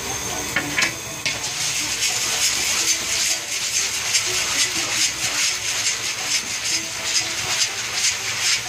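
Popcorn kernels sizzling and crackling in hot oil in a large steel kettle-corn kettle, stirred with a wooden paddle, before they begin to pop. The hiss swells about a second in and then holds steady.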